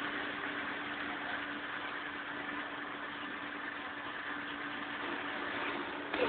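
Steady background hum and hiss of a fast-food counter's machinery and ventilation, with one constant low tone underneath.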